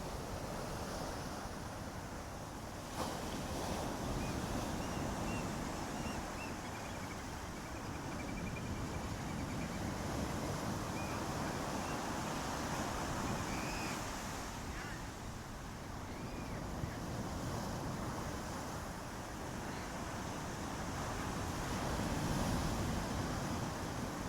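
Ocean waves washing onto the shore, a steady rush of surf that swells and eases every few seconds. There is one brief click about three seconds in.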